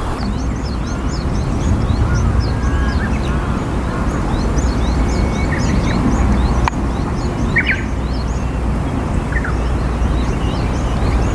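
Wild birds calling outdoors: many short, high chirps in quick succession, with a few lower calls now and then, over a steady low background noise.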